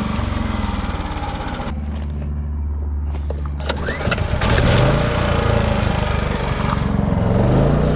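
Champion 4000-watt digital hybrid inverter generator shut down after overloading into fault: its engine cuts out abruptly a couple of seconds in. After a few clicks it fires right up again about four seconds in and runs, its pitch rising near the end.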